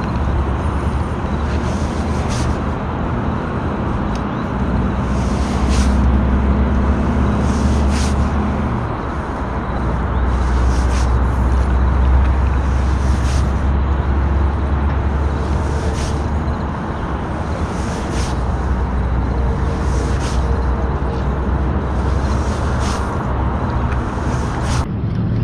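A low, steady engine drone with a pitch that shifts about a third of the way in. Faint high ticks recur every second or two.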